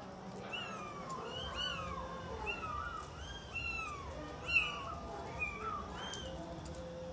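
Kittens mewing over and over: about ten short, high-pitched calls that rise then fall, one louder about halfway through.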